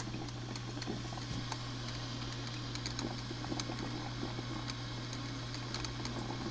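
1995 Black & Decker thermal carafe drip coffee maker brewing, with irregular small pops and crackles over a steady low hum.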